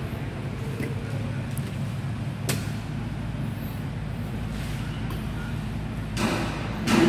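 Steady low rumble of a vehicle engine running, with a single sharp click about two and a half seconds in and a burst of rustling handling noise near the end as the phone is swung round.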